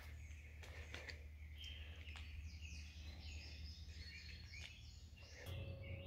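Faint outdoor ambience: small birds chirping and twittering in the background over a low steady rumble, with a couple of faint clicks. A faint steady hum comes in near the end.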